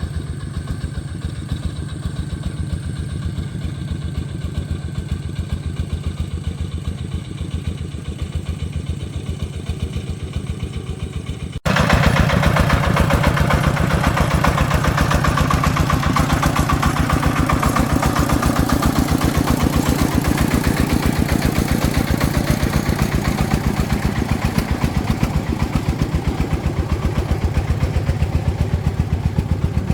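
Single-cylinder diesel engine of an agricultural truck running with a steady, rapid chug. About twelve seconds in, the sound jumps abruptly louder and fuller and keeps running.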